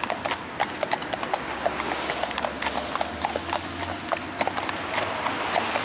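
Hooves of two walking horses clip-clopping on a paved path, a quick, uneven run of sharp strikes overlapping from the two horses.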